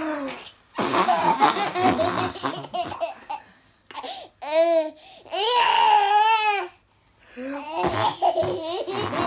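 Toddler laughing hard while being tickled on the tummy, with two long high squeals of laughter in the middle.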